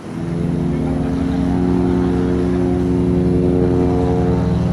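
A Britten-Norman Islander's twin piston engines and propellers run up to takeoff power about a quarter second in. They then hold a steady, pitched drone as the plane begins its takeoff roll.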